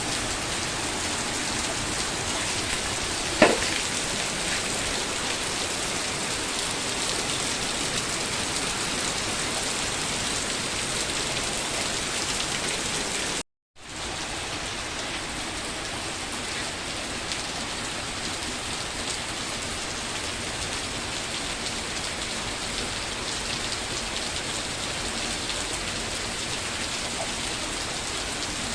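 Steady rain falling and pattering on surfaces, with one sharp tap about three seconds in. Near the middle the sound cuts out for a moment and comes back slightly quieter.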